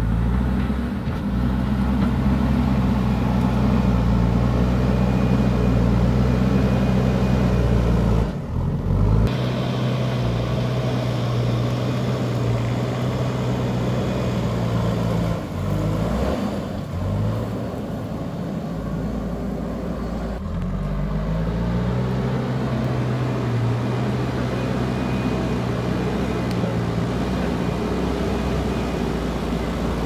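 JCB backhoe loader's diesel engine working under load as it pushes and levels dirt with its front bucket, the engine note dropping and rising a few times.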